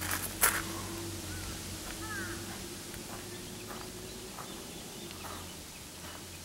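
Quiet garden ambience: two sharp clicks at the start, then a few short, faint bird chirps over a faint steady hum.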